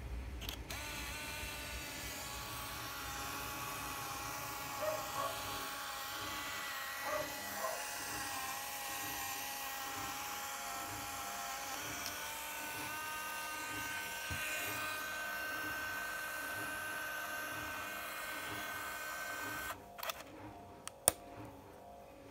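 Olympus Mju II's built-in film motor rewinding a roll of 35mm film into its cassette, a steady whine that steps up in pitch about twelve seconds in and cuts off about twenty seconds in. A few sharp clicks follow as the camera's film door is unlatched and opened.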